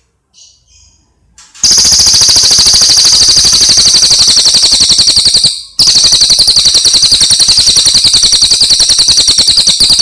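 A songbird's rapid, high-pitched rattling trill, the kind played on masteran recordings for training caged songbirds. It is loud and runs in two long stretches of about four seconds each, with a short break between them.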